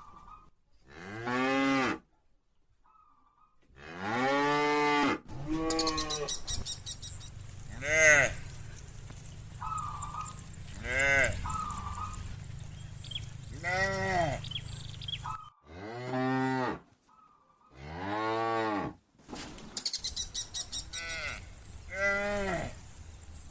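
Cows mooing over and over, about ten long calls that each rise and then fall in pitch, some overlapping one another. The sound drops out abruptly between a few of the calls.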